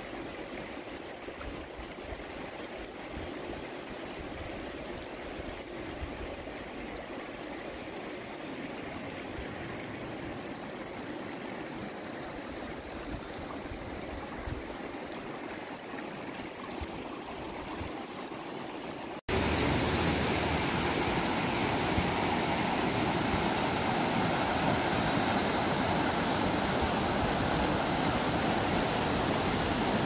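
A faint, steady outdoor rush, then, about two-thirds of the way through, an abrupt cut to the much louder, even rush of a shallow mountain river running over rocks close by.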